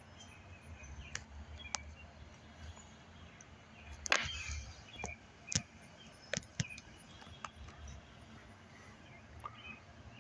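Outdoor ambience with a low steady rumble, faint short chirps and a handful of sharp clicks, the loudest a short noisy burst about four seconds in.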